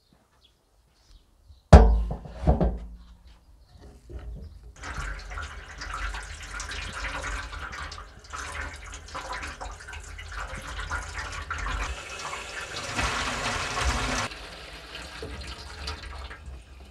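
Tap water running and splashing over a rack of veal as it is rinsed by hand in a stainless steel sink. It grows louder, then is shut off suddenly about three-quarters of the way through. Two loud knocks come about two seconds in, before the water starts.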